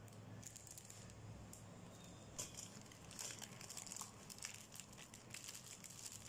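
Faint crinkling of a plastic pouch of brownie mix being handled, then the dry mix pouring into a stainless steel bowl, with small scattered crackles that grow denser from about halfway through.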